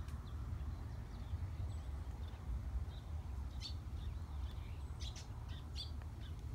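Short, high bird chirps, a few around the middle and a cluster near the end, over a steady low rumble.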